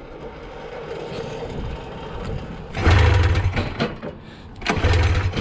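Arctic Cat two-stroke snowmobile engine on a motorcycle frame being cranked over twice in short bursts, about three and five seconds in, without starting after it suddenly lost power; the owner suspects the oil-pump delete, or overheating.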